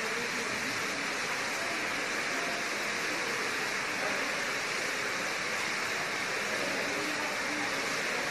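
A steady hiss of background noise at an even level, with faint voices far underneath.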